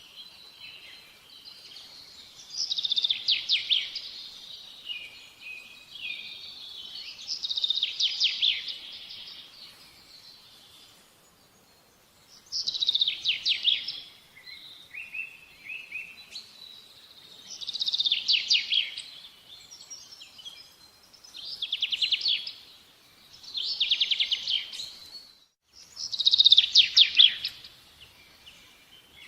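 A small bird singing short, fast trilled phrases, each about a second long, repeated about every four to five seconds, seven times in all.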